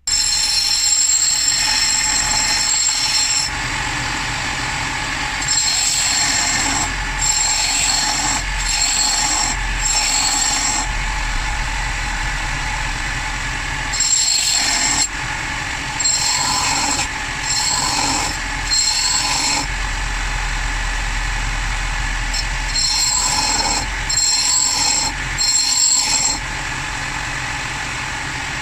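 Power tool grinding an edge onto a steel axe head. The motor runs steadily, and a high metallic screech comes and goes in stretches of about a second as the blade is pressed to the abrasive and lifted off.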